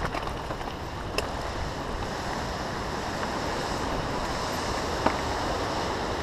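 Steady rush of Sahalie Falls on the McKenzie River, growing gradually louder as it is approached, mixed with wind on the microphone, with a couple of sharp knocks.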